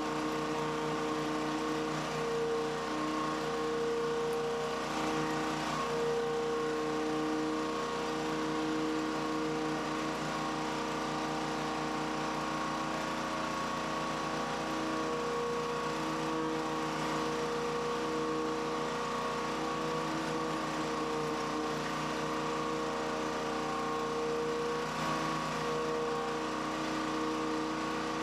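Small engine of a pressure washer running steadily at a constant speed, with a slightly wavering hum.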